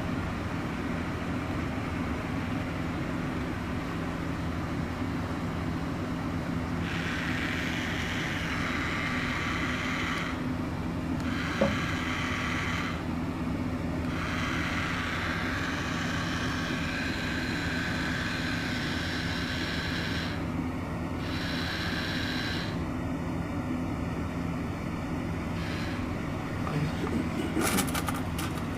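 Battery-powered toy bullet train running, its small electric motor giving a steady hum. Higher sounds start and stop over it several times. There is a sharp click about a third of the way in and a few clicks near the end.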